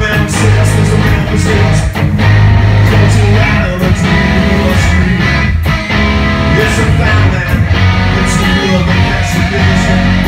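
Hard rock band playing live and loud: distorted electric guitars, bass and drums, with a man singing into a microphone.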